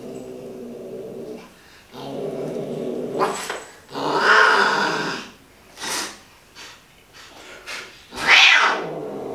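Angry, restrained tabby cat growling low, then breaking into loud yowls, with a couple of sharp hisses near the middle and end. This is defensive aggression while it is held down and given medicine.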